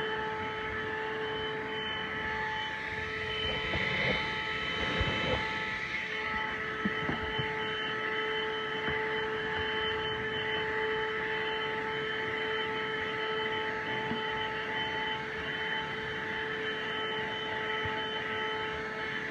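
THISWORX 12-volt handheld car vacuum running with a steady motor whine and rushing air, with some rumbling and knocking about a third of the way in.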